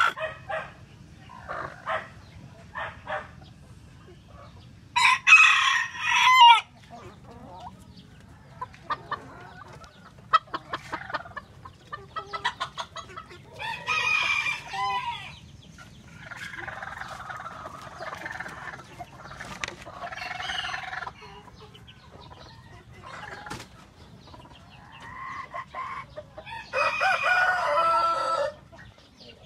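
Native chickens calling: roosters crowing several times, long calls spread through, with hens clucking in between.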